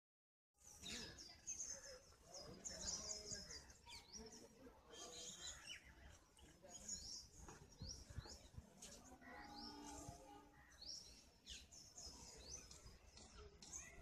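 Small birds chirping and twittering, faint: many quick, high calls overlapping one another, starting about half a second in.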